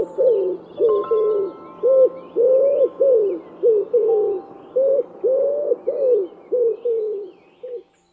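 A bird cooing: a rapid string of short, low, rounded calls, about two a second, with faint higher chirping behind. The calls stop shortly before the end.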